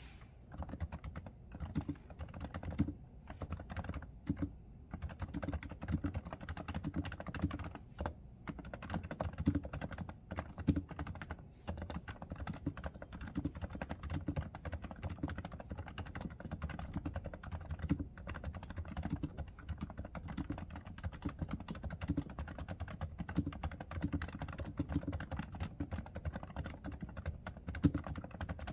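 Realforce R2 silent Topre (electrostatic capacitive) keyboard with 30 g key weighting being typed on continuously: a rapid stream of muted, low-pitched keystrokes with a few short pauses.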